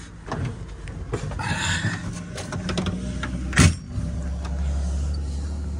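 Truck engine running steadily, heard from inside the cab as a low drone that grows stronger in the second half. Scattered rattles and clicks come from the cab, and there is one loud thump about three and a half seconds in.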